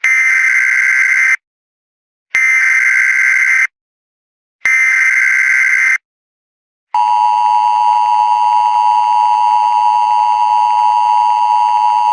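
Emergency Alert System header: three bursts of the SAME digital data tones, each a little over a second with about a second's gap between them. About seven seconds in, the steady two-tone EAS attention signal (853 and 960 Hz) begins.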